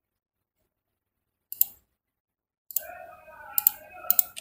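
Computer mouse and keyboard clicks as a CAD command is run: one sharp click about a second and a half in, then a few more clicks near the end over a faint held sound.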